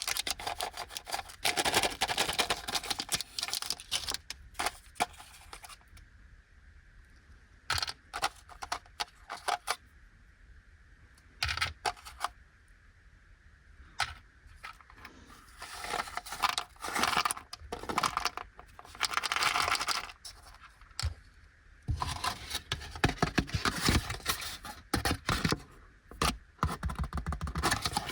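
Packaging of Fujiya Anpanman mini chocolates being handled and opened: crinkling wrapper and small clicks and rattles of the pieces, in bursts with a quieter stretch of scattered clicks in the middle.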